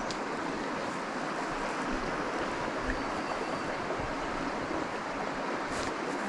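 Steady rush of river water running over rocks, an even hiss.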